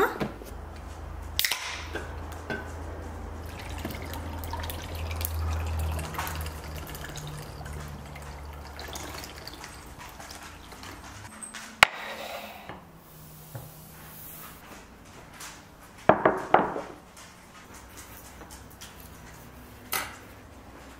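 A drink poured from an aluminium can into a glass of ice, trickling and dripping, among small clicks and clinks of containers and dishes. A louder clatter comes about two-thirds of the way through.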